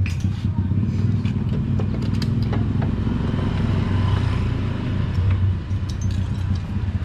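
Motorcycle engine idling steadily, with a few light metallic clicks of tools over it.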